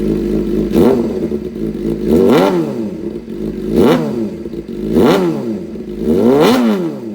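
Suzuki GSX750R inline-four engine revved hard five times through a titanium slip-on and AR aftermarket exhaust, each throttle blip rising quickly and dropping back toward idle.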